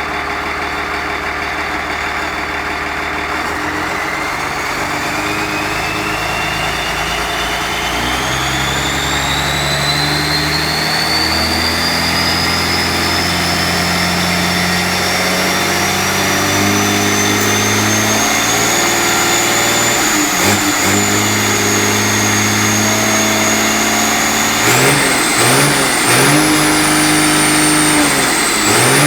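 Cummins B6T six-cylinder turbodiesel running shortly after start-up, its speed climbing in steps, with the turbocharger whine rising steadily in pitch. Near the end the revs go up and down several times in quick succession and the turbo whine wavers with them.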